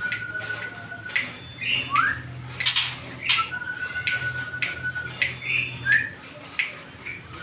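A songbird repeating one phrase: a long level whistle, then a quick rising note, higher chirps and sharp clicking notes, about every three and a half seconds. A steady low hum runs underneath.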